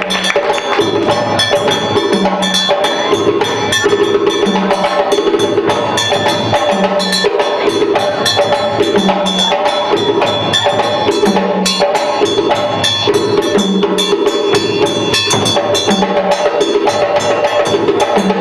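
Live African drum ensemble playing a steady, driving rhythm to accompany dance. A low drum note repeats about every two seconds under dense, fast clicking percussion.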